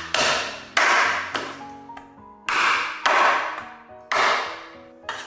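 Cleaver chopping a pig's trotter into bite-size pieces on a chopping board: about six heavy chops, some coming in quick pairs. Background music plays under them.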